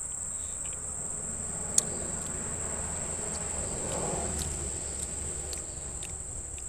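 Steady high-pitched drone of insects such as crickets or cicadas, unbroken throughout, with a few short clicks over it, the sharpest about two seconds in.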